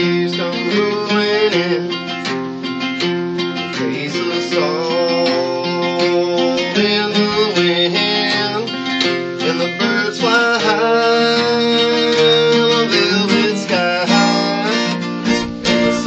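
Two acoustic guitars playing a tune together.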